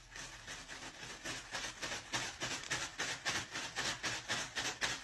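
A cat's paw scraping rapidly and repeatedly at a packet, about five strokes a second, getting louder as it goes.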